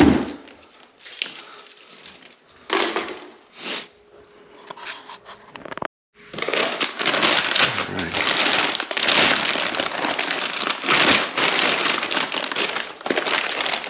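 Clear plastic packaging bags crinkling and rustling as tubular steel engine crash bars are handled and pulled out of them. Scattered short rustles at first, then continuous crinkling from about six seconds in.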